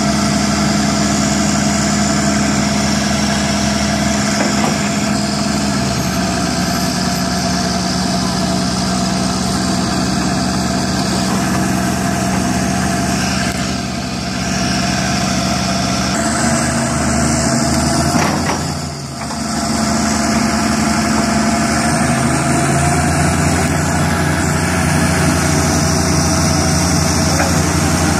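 Heavy diesel engines of a Caterpillar excavator and a crawler dozer stuck in deep mud running steadily. The engine speed drops about six seconds in, rises again around sixteen seconds, and changes once more near twenty-three seconds as the machines work.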